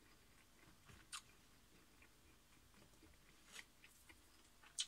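Near silence with faint chewing: a few soft mouth clicks, about a second in, around three and a half seconds in and near the end, as a mouthful of microwaved chopped-and-shaped barbecue pork patty is eaten.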